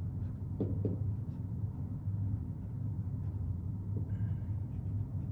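Steady low hum of the room, with faint scratches and a brief squeak about four seconds in from a dry-erase marker writing on a whiteboard.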